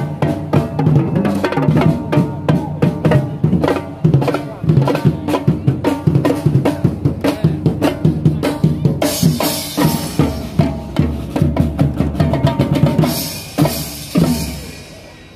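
Drum troupe playing a fast, driving rhythm on snare and bass drums, many strikes a second. A bright hissing layer joins for a few seconds after the middle, and the whole fades out near the end.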